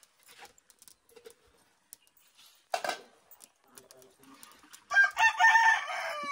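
A rooster crows once, loudly, about five seconds in, for just over a second. A short, noisy sound comes about three seconds in, with faint ticks before it.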